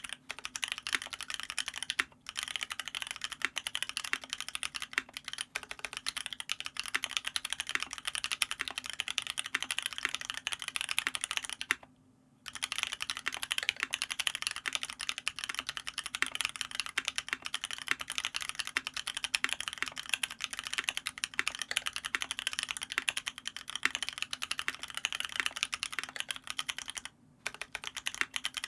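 Fast, continuous typing on a custom mechanical keyboard with lubed Paco linear switches (cream housings, Halo stems), brass plate and PBT keycaps. The keys clack steadily, with three short pauses, the longest about half a second, roughly 2, 12 and 27 seconds in.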